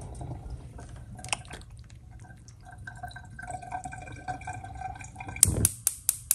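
Water splashing and dripping as a piece of beef is lowered into a steel pot of water. Near the end, a gas hob's igniter clicks about five times in quick succession as the burner lights.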